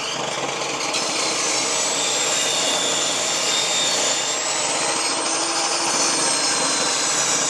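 Table saw running and ripping a thin 1/4-inch strip off a wooden board: a steady cutting noise with a high whine over it.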